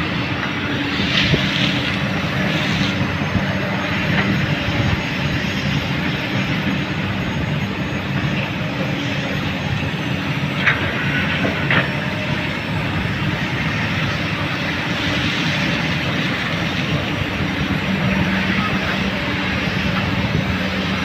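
Komatsu PC200 excavator's diesel engine running steadily under working load, with a couple of sharp knocks about halfway through.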